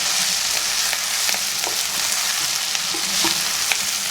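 Beef and curry leaves frying in oil in a pan with a steady sizzle, stirred with a spatula that scrapes and taps the pan now and then.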